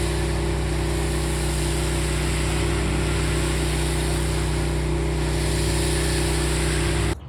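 Engine-driven pressure washer running steadily, its motor drone under the loud hiss of water spraying from a turbo (rotating) tip; it cuts off suddenly near the end.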